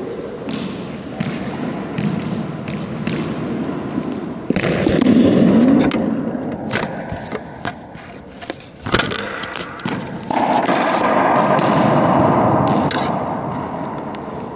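Scattered sharp knocks and thuds in an echoing racquetball court, the loudest about nine seconds in, mixed with scraping and rubbing from the phone being handled near the microphone.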